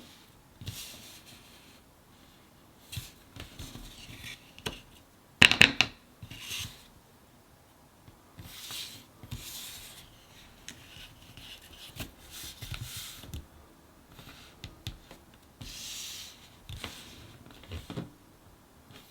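Cardboard jigsaw puzzle pieces being handled: rubbing and sliding against each other and the table in short bouts, with small clicks, and a louder cluster of clicks about five and a half seconds in.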